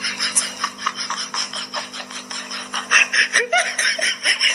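Shiba Inu chewing on a hard plastic object, a fast run of sharp clicks and crunches about five a second. A person laughs over it from about three seconds in.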